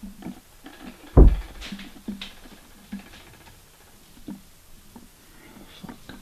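One heavy thump about a second in, followed by scattered light knocks and taps.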